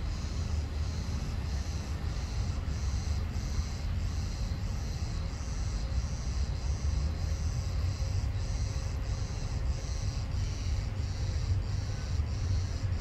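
Cicadas calling in a steady pulsing rhythm, about two pulses a second, over a low background rumble.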